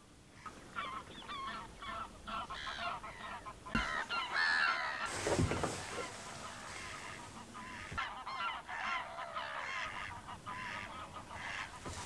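Greylag geese honking: many overlapping calls starting about half a second in and busiest around the middle, with a couple of dull knocks.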